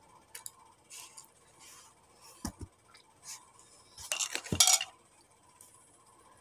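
Handling and eating noises while eating a banana: scattered light clicks and rustles, a couple of sharp taps about halfway through, and a louder crackly rustle lasting under a second about four seconds in.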